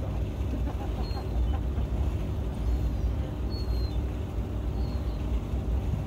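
Ship's engine running: a steady low rumble, with a few faint short high chirps now and then.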